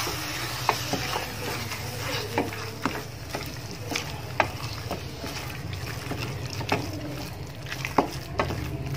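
A wooden spatula stirring and scraping a thick mash of boiled banana and grated coconut in a stainless steel pan. It knocks against the pan several times with sharp clicks, over a steady low hum.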